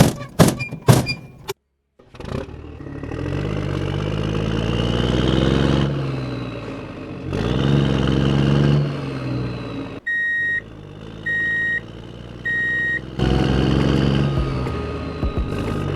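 A few knocks, then a tractor engine sound running and revving, rising and falling in pitch. Partway through it breaks for three short, evenly spaced beeps like a horn, then the engine sound resumes.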